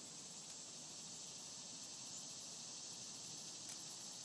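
Faint, steady high-pitched insect chorus, with one small click about three and a half seconds in.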